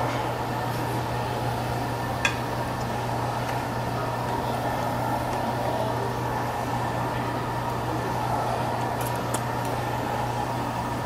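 Steady hum and rushing noise of a ventilation fan, with a few light clicks of utensils, one about two seconds in and a couple near the end.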